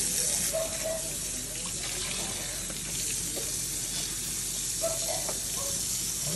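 Kitchen faucet running a steady stream of water into a sink, splashing onto a wet capuchin monkey's fur as it is lathered.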